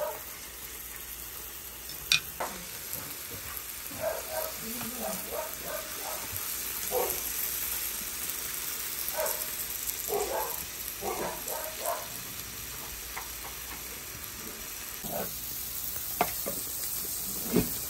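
Pork belly slices sizzling steadily on a perforated round grill plate. A sharp click about two seconds in, and a couple more clicks near the end, as tongs and scissors work the meat.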